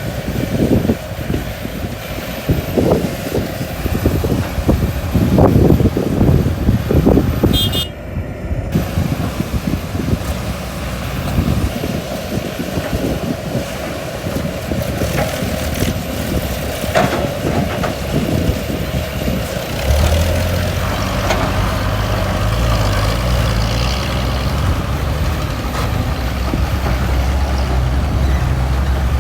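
Excavator and dump truck diesel engines running at a dig site. Irregular knocks and thuds fill the first several seconds, the sound dips briefly about eight seconds in, and a steady low engine drone comes in from about twenty seconds in.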